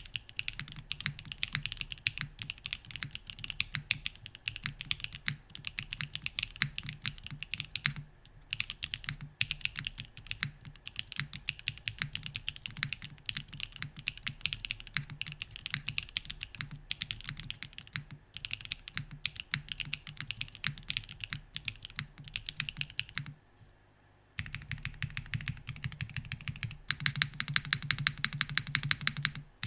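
Typing on a Kalam Korn mechanical keyboard with SWK Ripple switches, an O-ring-mounted aluminium plate, no foam, and Domikey keycaps: a fast, steady stream of keystroke clacks. The typing stops for about a second near the end, then resumes faster and louder.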